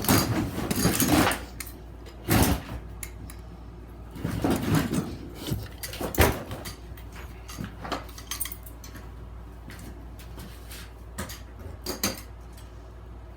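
Handling clatter from fire alarm pull stations being closed and moved about: scattered clicks, knocks and rattles, the loudest knock about six seconds in.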